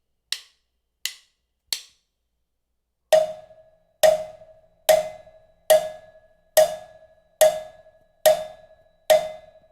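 Sync hits on a percussion instrument: three light taps, then eight evenly spaced strikes a little under a second apart, each with a short ringing tone, struck so the recorder's audio can be lined up with the camera's picture.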